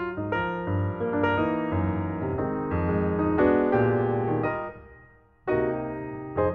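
Background piano music, a run of struck notes; it dies away about five seconds in and starts again half a second later.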